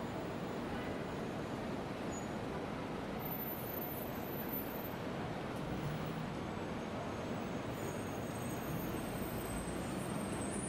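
Busy city street traffic: a steady, even wash of noise from cars, taxis and vans moving through an intersection.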